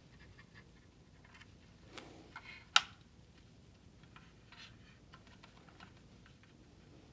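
Small clicks and taps of an M.2 SSD being handled and pushed into the motherboard's M.2 slot, with one sharp click nearly three seconds in.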